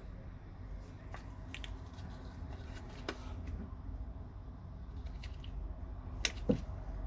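A watch's presentation box and its packaging being handled, giving scattered light clicks and taps, with two sharper clicks about six seconds in, over a steady low hum.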